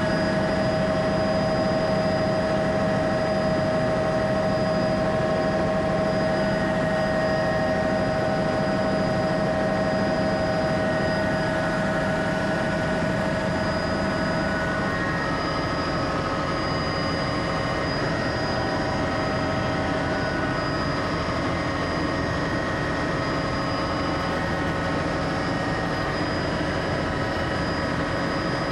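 Helicopter engine and rotor noise heard from inside the cabin: a steady whine over a low rumble, its pitch shifting slightly about halfway through.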